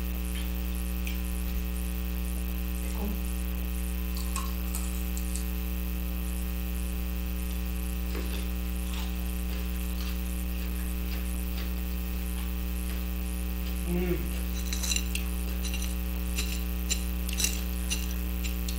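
Steady electrical mains hum. A few faint clicks and taps come in near the end, from handling food at the table.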